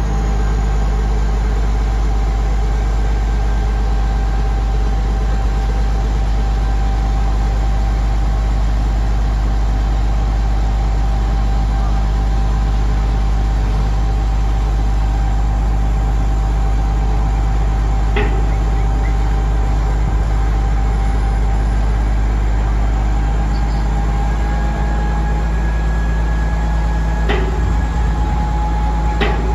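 Diesel engine of a 60-ton barge-mounted crane running steadily under load, with a steady whine over a deep rumble, as it hoists a boat of about 20,000 pounds. A couple of faint clicks come through, about two-thirds of the way in and near the end.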